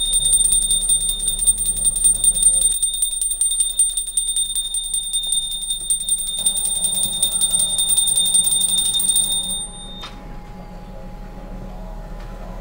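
Small puja hand bell rung rapidly and continuously for a devotional food offering, a high ringing that stops abruptly about ten seconds in.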